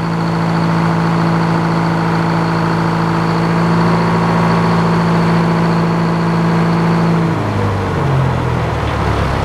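Sawmill engine running steadily at speed with a faint high whine, then throttled down about seven seconds in, its pitch dropping as it slows.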